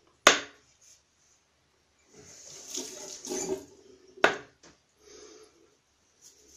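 Water from a bathroom tap running in short spells as a shaving razor is rinsed, with two sharp clacks of the razor against the basin, one at the very start and one about four seconds in.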